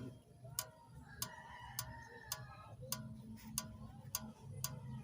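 Sharp, regular ticking, a little under two ticks a second, over a low steady hum.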